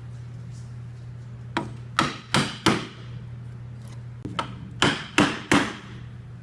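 A chisel being driven into hardwood with mallet blows to chop a mortise by hand. The blows come in two groups, each a light tap and then three heavy blows in quick succession, with a pause between groups. A steady low hum sits under them.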